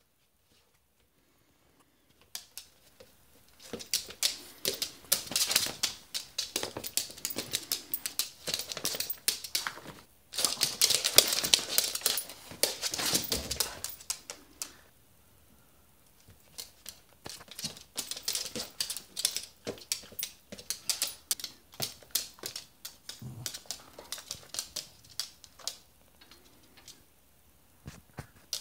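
Rapid clicking and scrabbling of animal paws and claws on hard flooring, as a small dog and a rabbit dash about. It starts about two seconds in, comes in dense flurries for the first half, then thins to scattered clicks.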